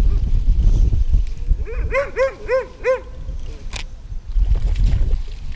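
A dog giving a quick run of about five short yipping barks, each rising then falling in pitch. A low rumble sits under the start and the end.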